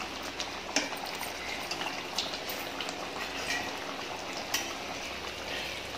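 Thick cornflour-thickened chicken gravy simmering in a pot, bubbling steadily with scattered small pops.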